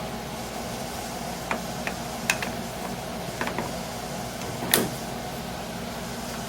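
Light metallic clicks and taps of tools and parts being handled at a metal lathe, about six in all, the loudest a little under three-quarters of the way through, over a steady low hum.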